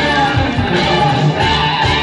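Live performance of an upbeat song through a concert hall's PA: a backing track with drums and guitar, and a woman singing into a handheld microphone.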